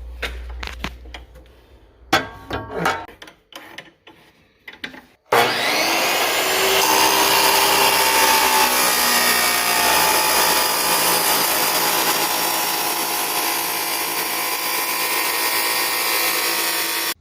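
A few clanks as the steel pipe is handled, then about five seconds in a power cutting tool starts up and cuts steadily through heavy steel weld pipe.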